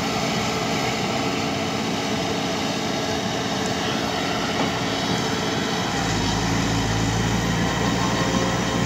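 Volvo crawler excavator's diesel engine running steadily as the machine drives its tracks up onto a truck bed. About six seconds in, a steady low drone comes in and the sound grows a little louder.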